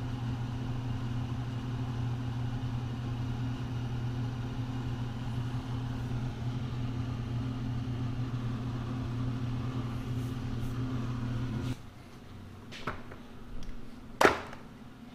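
Steady low machine hum that cuts off abruptly about two thirds of the way through. A few sharp clicks and knocks follow, from a wooden case being handled and opened, with one loud knock near the end.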